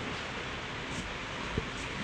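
Steady background hiss with a soft low thump about one and a half seconds in.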